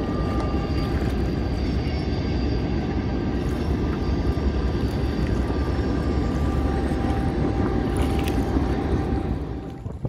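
Wind buffeting the microphone in a steady rush while a canoe is paddled over choppy river water, with a faint steady hum of a distant engine underneath.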